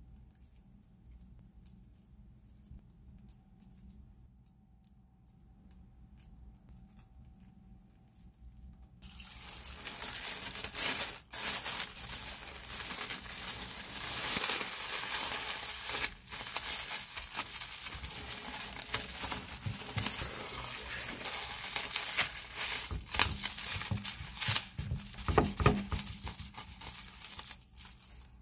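Faint soft scraping of a spatula spreading egg salad on toast. About nine seconds in, this gives way to loud, continuous crinkling and rustling of baking paper as a sandwich is wrapped tightly in it.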